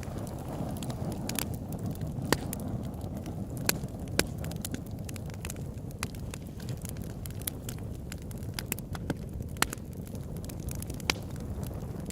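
Campfire crackling: irregular sharp snaps and pops, a handful of them louder, over a steady low rumble.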